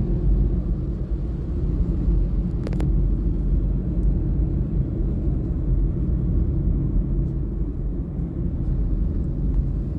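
Steady low rumble of a vehicle on the move in town traffic, with a single brief click a little under three seconds in.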